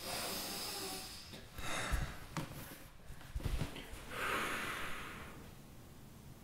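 A man breathing heavily and unsteadily, several long, shaky breaths in and out. There are two low thumps, about two seconds in and again a second and a half later.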